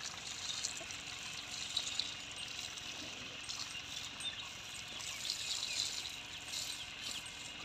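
Water from a garden hose spraying onto a young water buffalo's head and hide and splashing onto the muddy ground: a steady hiss.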